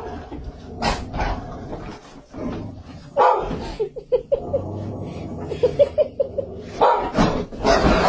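Several dogs barking, with sharp single barks and a rapid run of short high-pitched yips in the middle.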